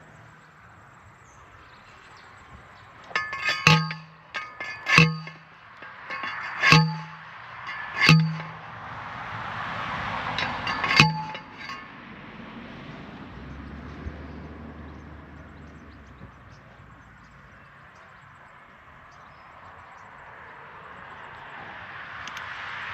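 Steel waratah (star picket) being driven into the ground with a hand post rammer: five ringing metal clangs over about eight seconds, with a few lighter metallic clinks among the first strikes.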